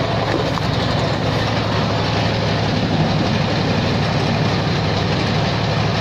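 Multipurpose waste grinder (shredder) machine running steadily, a continuous mechanical drone without breaks.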